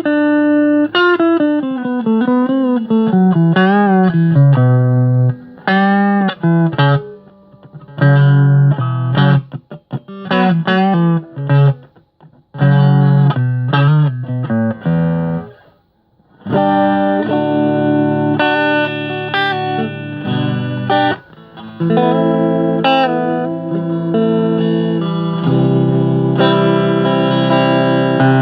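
Agile Telecaster-copy electric guitar being played: single-note lead lines with string bends through the first half, a short break about sixteen seconds in, then strummed chords.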